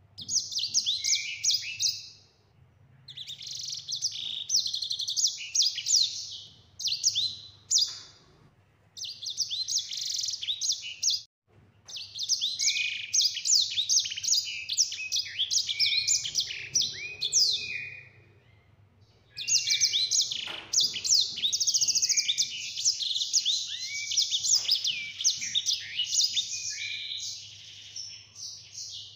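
Grey singing finch (sanger) singing long, rapid, high twittering song phrases in five runs with short pauses between them, the longest lasting about nine seconds in the second half.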